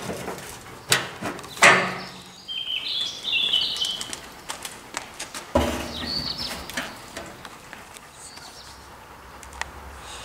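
Metal knocks and clanks from the latch and lid of a homemade steel-drum smoker being shut, the loudest clanks about two seconds and five and a half seconds in, with a brief high squeak around three seconds.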